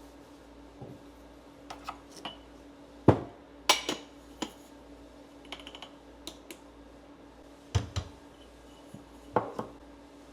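Scattered metal clinks and knocks of espresso puck-prep tools and the portafilter being handled and set down, the sharpest knocks about three and eight seconds in. A faint steady low hum runs underneath.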